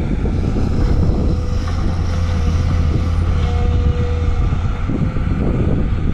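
Volvo excavator's diesel engine running steadily with a low rumble while working, with a faint thin whine in the middle.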